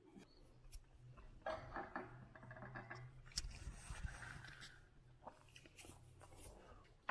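Quiet dinner-table sounds: faint scattered clicks and taps of a fork on a plate while eating, over a low steady hum.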